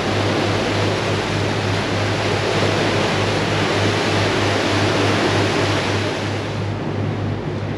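Strong wind and breaking sea rushing past a catamaran running downwind in rough water, a loud steady rush, over the steady low drone of its twin diesel engines running.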